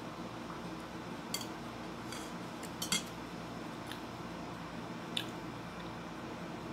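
A few short, light clinks of a metal spoon against a ceramic soup bowl while eating, over a steady low hum.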